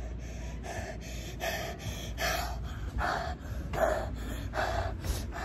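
A boy breathing hard right into a phone's microphone: quick, gasping breaths, a little more than one a second, getting louder after about two seconds in.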